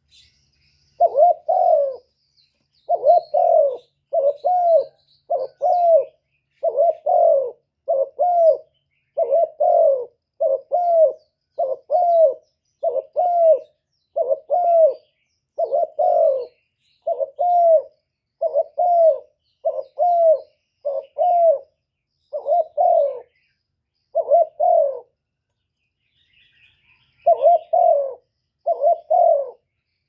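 Spotted dove (cu gáy) cooing over and over in short phrases about once a second, with a pause of about two seconds near the end. Faint chirps of small birds sound higher up behind it.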